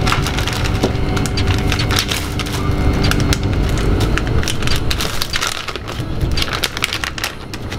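Moving train carriage rumbling steadily, with a faint whine for the first few seconds, and irregular close-up crackling and clicking over it.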